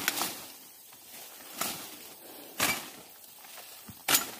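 A machete slashing through leafy undergrowth: four sharp cuts spread irregularly over a few seconds, the last the loudest.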